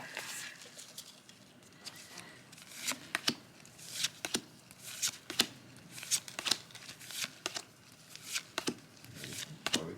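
Pokémon trading cards being handled and shuffled through the hands: a string of short papery flicks and swishes, one every half second to second.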